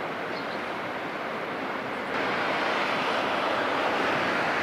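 Steady outdoor wash of wind and water, with no distinct engine note. About two seconds in it steps up louder and brighter in hiss.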